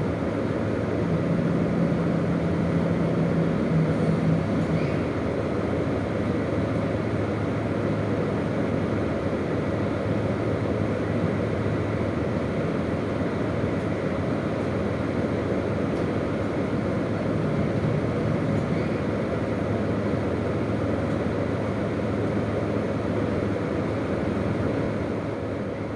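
Running noise of a KiHa 201 series diesel railcar: a steady rumble of wheels on rail with a low engine hum that drops away about halfway through.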